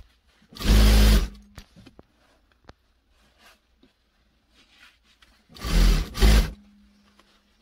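SunStar industrial sewing machine stitching in two short runs of about a second each, one about a second in and one near the end. Each run is followed by a faint hum from the motor, and there are light clicks of fabric handling in between.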